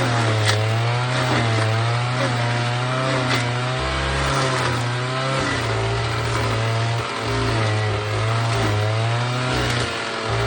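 Alpine Magnum stump grinder running at high speed while its Greenteeth cutter wheel chews into a stump. The engine pitch wavers up and down as the load comes on and eases off, over a steady spray of grinding noise and a few sharp ticks.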